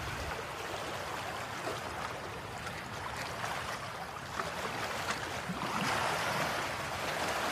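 Steady rushing water noise with no distinct events, growing slightly louder near the end.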